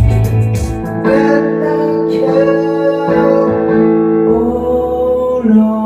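Rock band music led by guitar: drums play for about the first second, then drop out, leaving held guitar chords.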